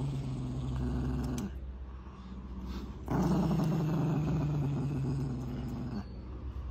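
Small dog growling with its teeth bared in long, low growls: one ends about a second and a half in, and another starts about three seconds in and lasts about three seconds.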